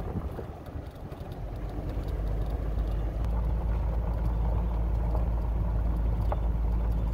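Steady low rumble of an RV driving slowly on a gravel road: engine and tyre noise heard from inside the cab.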